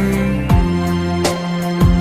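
Instrumental section of a song with no vocals: held chords over a steady beat.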